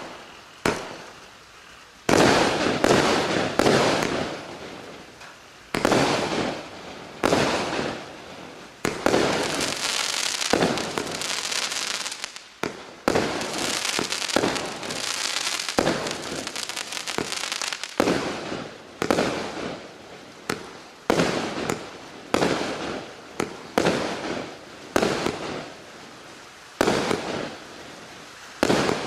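Klasek consumer fireworks battery firing a rapid series of shots, sharp bangs about one to two a second, each fading away. Between stretches of single shots there are longer spells of dense, continuous sound from several effects going off together.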